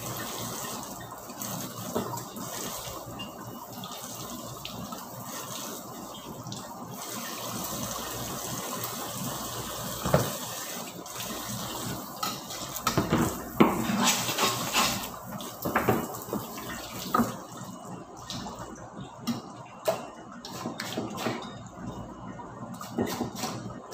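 Kitchen tap running into a sink while dishes are rinsed, with knocks and clatter of pans and utensils. About three-quarters of the way through, the running water stops and only the separate clatters of the dishes go on.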